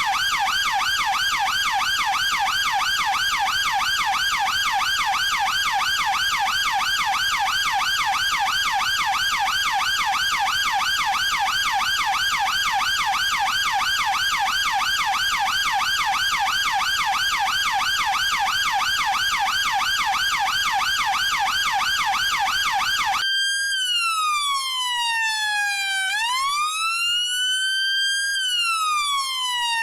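British police car siren on a fast yelp, its pitch sweeping up and down several times a second. About 23 s in it switches to a slow wail that falls, rises and falls again.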